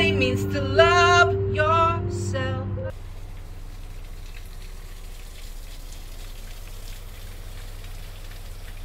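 A song plays, a voice singing over held backing notes, and cuts off abruptly about three seconds in. After that only a steady, even hiss remains.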